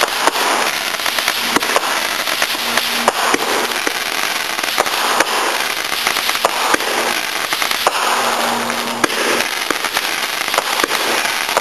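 Fireworks going off: a continuous dense crackle with many sharp, irregular pops.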